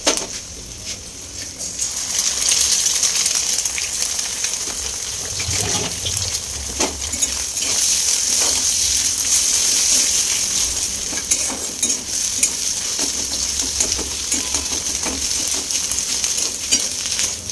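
Egg frying in hot oil with chopped onions and green chillies in a kadhai, sizzling steadily while a spatula scrapes and taps the pan as the egg is scrambled. The sizzle gets louder about two seconds in.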